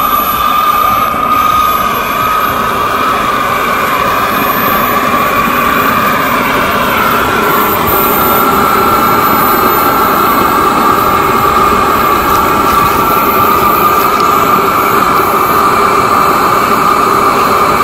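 K45G4 model turbine jet engine in an RC F-22 Raptor running steadily on the ground: a loud high whine over a rushing hiss. Its pitch steps up slightly about seven seconds in.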